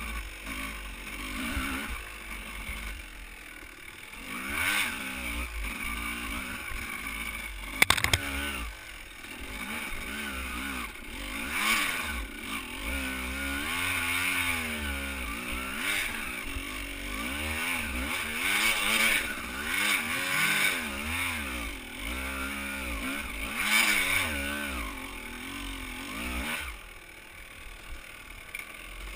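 Dirt bike engine revving up and down again and again as it is ridden along a rough trail. There is a sharp clatter about eight seconds in.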